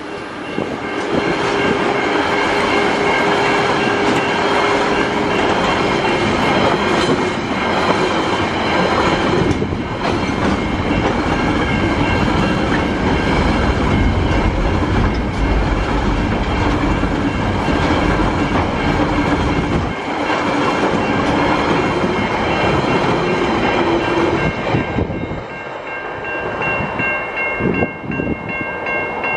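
Container wagons of a freight train rolling past over a level crossing: a loud, steady clatter and rumble of wheels on rail that ends about 25 seconds in as the last wagon passes. The crossing's warning bell rings on over the quieter tail.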